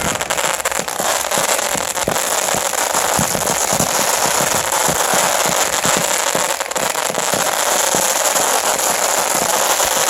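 Fireworks going off in a steady, dense crackle of many rapid pops, with louder individual bangs scattered through it.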